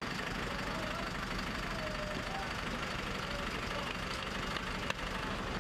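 Bus engine idling steadily, with a single sharp click about five seconds in.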